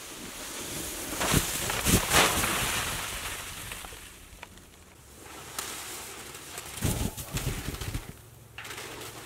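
Snow sliding off a cabin roof as a paracord is dragged across it: a rushing hiss that builds over the first few seconds with a few thuds, then a second, smaller slide with thumps near the end.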